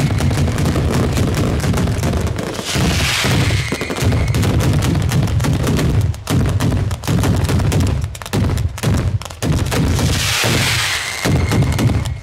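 Ground fireworks battery fired in the Bolognese style (batteria alla bolognese): a dense, continuous barrage of rapid bangs, with a few brief gaps in the second half. Two swells of hissing crackle rise over it, about three seconds in and near the end.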